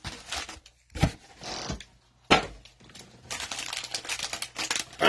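Cellophane card-pack wrappers crinkling and tearing as packs are opened and cards handled, with two sharp knocks about one second and two and a half seconds in.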